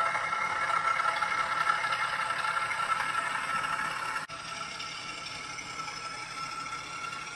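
Model Class 08 diesel shunter's sound decoder playing its engine running sound through the locomotive's small speaker, a steady hum of several fixed tones. It drops suddenly in level just over four seconds in and carries on quieter.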